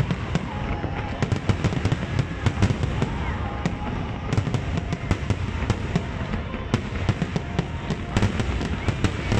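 Aerial firework shells bursting in quick succession: a dense, irregular crackle of many sharp pops over a continuous low rumble.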